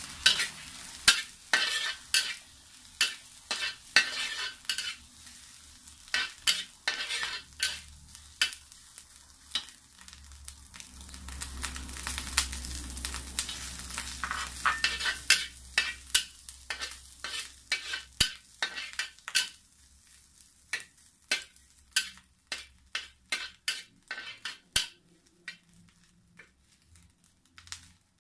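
A metal spatula scraping and knocking against a wok while pounded dried prawns and dried chillies stir-fry and sizzle. The strokes come irregularly at first, then settle to about two a second in the later part.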